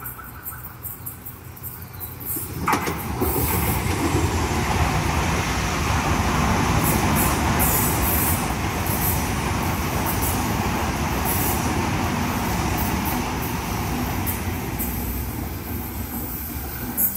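A train comes through loud about three seconds in and keeps running past, a steady rumble with flickers of high wheel squeal on top, easing off slightly toward the end.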